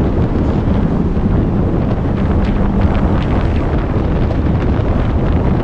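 Storm-force wind buffeting the camera's microphone, a loud, continuous rumbling noise with no letup.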